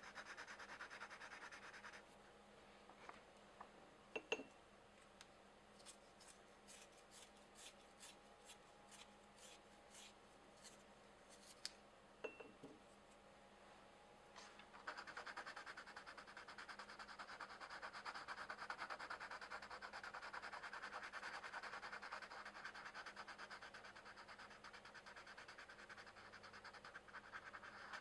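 Colored pencil shading on paper: a soft, steady, scratchy rubbing that stops about two seconds in. A quieter pause with a few light clicks and taps follows, and the shading starts again about halfway through and keeps on.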